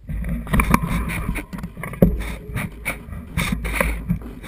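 Mountain bike rolling fast over a rough dirt singletrack, its frame and drivetrain clattering with many short knocks over roots and stones, above a steady low rumble.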